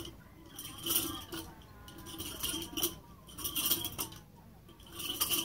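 Stainless steel nunchaku swung in practice, its metal chain links jingling and rattling in bursts a little over a second apart, one with each swing.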